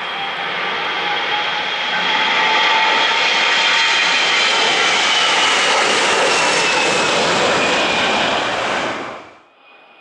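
Jet airliner engines running loud, a rushing roar with a high whine that slowly glides lower; the sound cuts off abruptly near the end.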